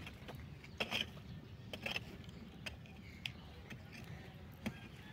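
Sharp, irregular knocks and taps, some in close pairs, over a low steady rumble.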